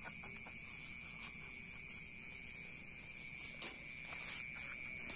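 Night insects calling: a continuous high-pitched cricket trill under a higher, pulsing insect buzz. A few faint ticks and rustles come from hands working the potting mix, with two small taps late on.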